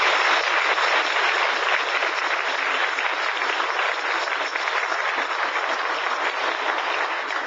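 Audience applauding, a dense patter of many hands clapping that eases slowly toward the end.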